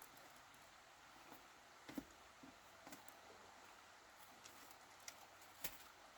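Near silence, with a few faint scattered clicks and taps; the sharpest come about two seconds in and near the end.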